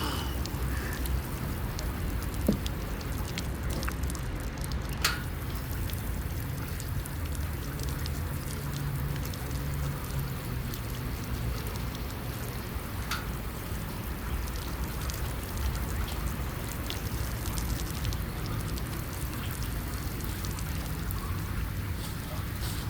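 Steady wash and fizz of small Mediterranean waves on the beach, with a few scattered faint clicks.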